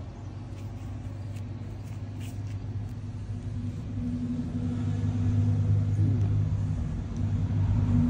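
A motor's steady low hum, like an engine running, growing louder over the second half.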